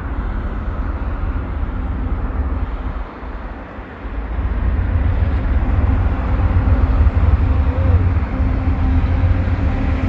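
GE diesel freight locomotives running with a deep, steady engine drone and rumble. It dips briefly about three seconds in, then builds louder as the locomotives draw near.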